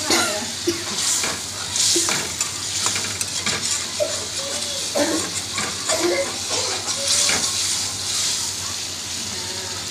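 Metal spatula stirring and scraping a steel kadai of okra and potato frying in oil, with scattered clinks against the pan over a steady sizzling hiss.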